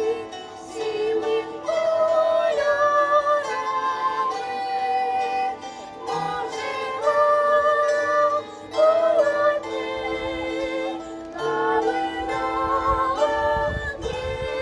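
Bandura ensemble playing a melody on plucked strings, with voices singing long held notes over it.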